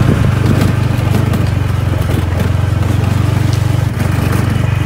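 Motorbike engine running steadily as the bike rides along, a low even drone with a brief dip about four seconds in.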